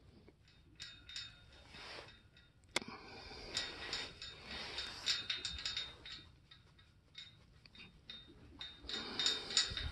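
A hand rubbing a goat's head through a wire fence: irregular scratchy rustling with scattered light clicks, one sharp click about three seconds in, and denser scratching near the end.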